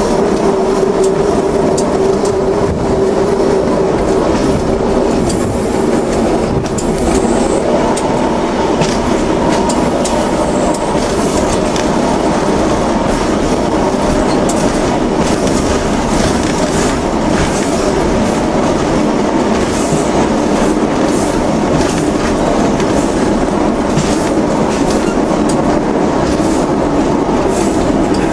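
Diesel passenger train running steadily along the track, heard from on board: continuous engine and rolling noise with the clickety-clack of the wheels over rail joints.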